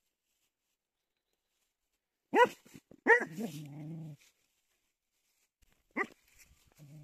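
Beagle barking at a hedgehog: two sharp barks about two and a half seconds in, the second running into a low growl, then another bark about six seconds in and a short growl near the end.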